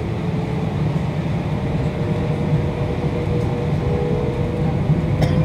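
Airbus A320 cabin noise over the wing while taxiing: the IAE V2500 engines running at idle give a steady low rumble with a faint hum.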